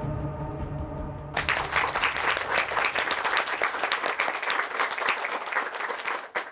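Drama score with held notes, cut off about a second and a half in by a small group applauding, a dense patter of hand claps that stops near the end.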